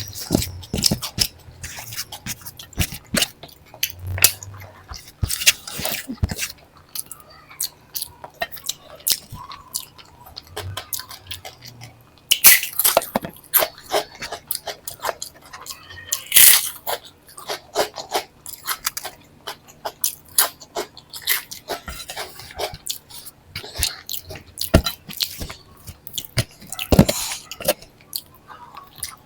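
Close-miked chewing and mouth sounds of someone eating a meal of dal and rice: a steady run of wet smacks and small clicks, with a few louder, sharper crunches about 12 and 16 seconds in.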